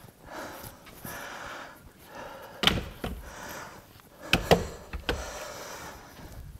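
A man breathing hard, in repeated breaths about a second apart, after a set of heavy dumbbell shoulder presses. Two loud thuds come through it, about two seconds apart.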